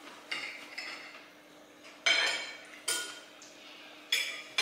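Knives and forks clinking and scraping on ceramic dinner plates as food is cut, about five sharp ringing clinks, the loudest about two seconds in.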